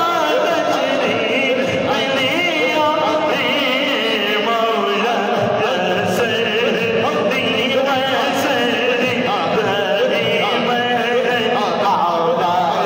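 Islamic devotional singing in a chant-like style, the sung melody running on without a break.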